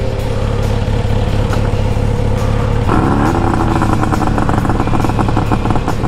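Motorcycle engine running on the road, with wind noise. About halfway through a new engine note comes in, rising slightly, with a fast pulsing.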